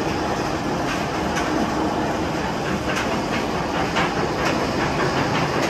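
Steel floorless roller coaster train running along the track overhead: a steady loud rush of wheel noise with scattered sharp clacks.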